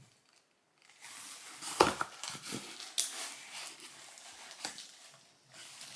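Shredded paper packing rustled and crinkled as it is pulled out of a parcel, with a few sharp knocks, the loudest about two seconds in.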